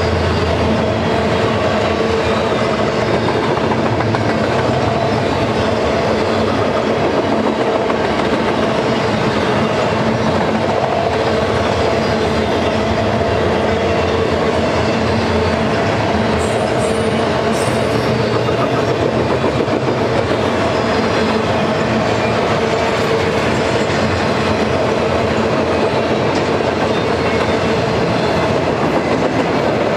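Double-stack intermodal well cars rolling past at steady speed: a continuous rumble and clatter of steel wheels on the rails, with a steady hum underneath.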